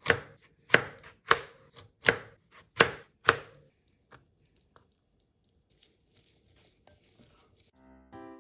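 Kitchen knife chopping food on a cutting board: six crisp strokes at an uneven pace over the first three and a half seconds, then a few faint small knocks. Background music begins just before the end.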